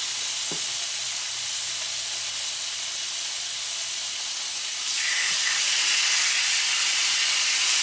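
Marinated jerk chicken sizzling on the hot plate of an electric contact grill, a steady hiss. About five seconds in the sizzle gets louder as a second piece is laid on the plate.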